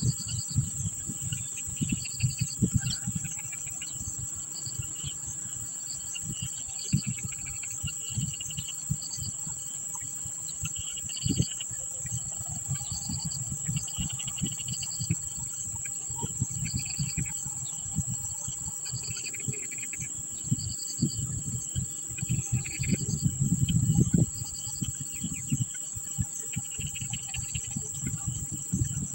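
Insects, crickets among them, keep up a steady high-pitched drone with short chirps repeating every second or two, and faint bird chirps come and go. Low knocks and rumbles run underneath and are strongest about three-quarters of the way through.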